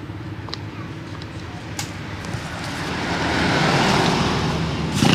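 Mitsubishi two-stroke brush-cutter engine running just after being pull-started, getting louder from about two and a half seconds in. A sharp knock comes near the end.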